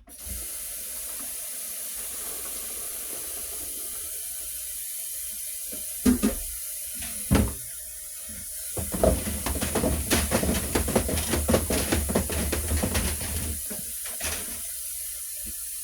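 Kitchen faucet running steadily into a sink filling with water for dishes. There are two sharp knocks about six and seven seconds in, then several seconds of splashing and clatter.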